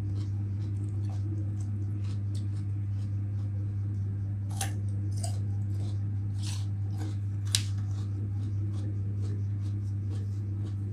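Crisp crunching bites and chewing of raw chayote, with several sharp crunches between about four and a half and seven and a half seconds in. A steady low hum runs underneath.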